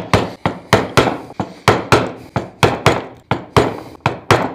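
Wood chisel struck with a mallet in quick, regular blows, about three a second, chopping waste wood out of a pine board.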